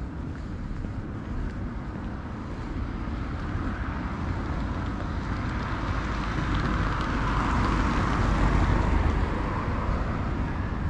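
Road traffic: a steady low rumble, with one car's tyre and engine noise swelling as it passes and then fading near the end.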